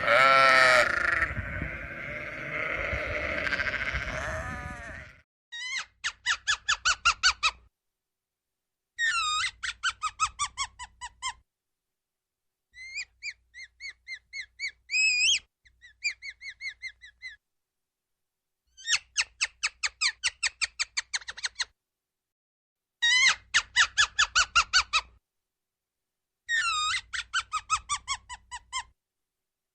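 A bleating call near the start, then an animal's rapid squeaky chirping in repeated bursts. Each burst lasts about two seconds, is made of some ten quick notes a second that mostly fall in pitch, and is separated from the next by short silences.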